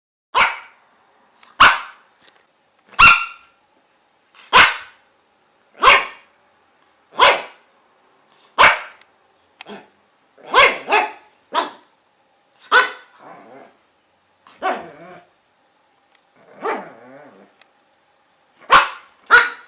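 A dog barking repeatedly: single sharp barks about every second and a half, some coming in quick pairs, with a few quieter, lower barks in between.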